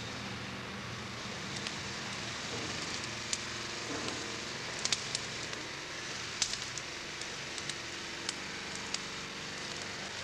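Timber bonfire crackling, with irregular sharp pops over a steady low rumble.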